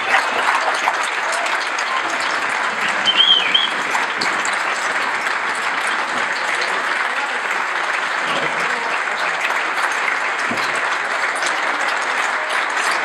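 A large crowd applauding steadily, giving a veteran a sustained ovation as he comes to the front. A short whistle cuts through the clapping about three seconds in.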